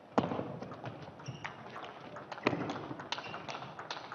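Table tennis rally: the plastic ball ticking sharply back and forth off the rubber bats and the table, more than a dozen quick clicks, the loudest about a quarter second and two and a half seconds in, with a few short high squeaks between them.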